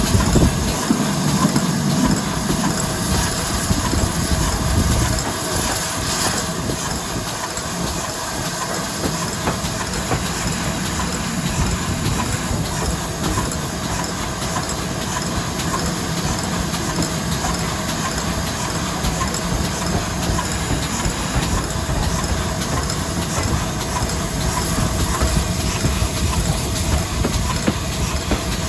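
Passenger train under way, heard from a carriage window: a steady rush of wheel-on-rail running noise and wind.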